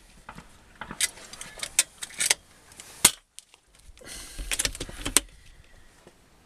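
A series of sharp metallic clicks and clinks, about seven, spread unevenly, with the loudest about three seconds in, over a low rumble.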